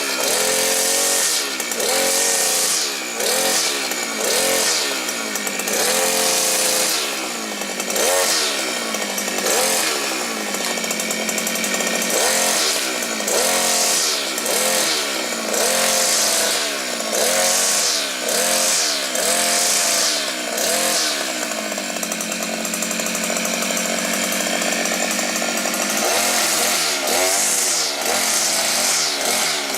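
Maxmat 43cc two-stroke brush cutter engine running and being revved up and down with the throttle about once a second. It holds a steadier speed for a few seconds a little past the middle.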